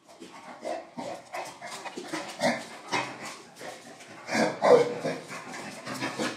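Small fluffy dog vocalizing in a run of short, irregular yaps, the loudest about four and a half seconds in.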